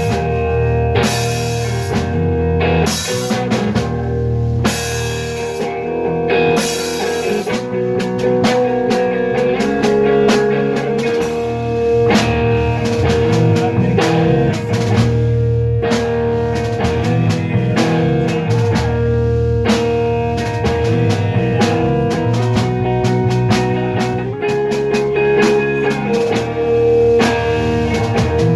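Instrumental rock band music: guitar over a drum kit, with a held guitar note running through much of it. Heavy cymbal strokes in the first several seconds, lighter drumming after.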